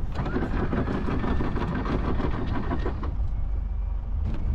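Electric anchor windlass hauling in the anchor chain, a rattling motor-driven run that stops about three seconds in, over the low rumble of the boat's engine and wind.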